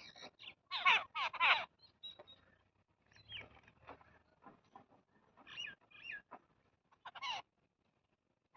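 Small birds chirping in quick clusters of short, falling notes, loudest about a second in and again near the end, then stopping.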